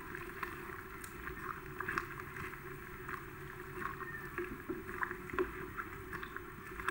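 A ladle stirring a pot of sayur asam, sloshing the broth around chunks of eggplant and chayote, with scattered light clicks and knocks of the ladle.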